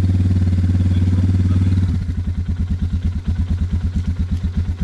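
Suzuki DR650's single-cylinder four-stroke engine running steadily, then about two seconds in the revs drop to a slower, uneven idle with each firing beat heard separately.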